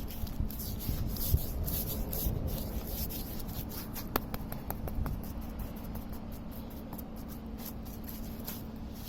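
A paintbrush rubbing thick gloss bitumen blacking onto a narrowboat's steel hull: repeated short, scratchy strokes, over a faint steady low hum.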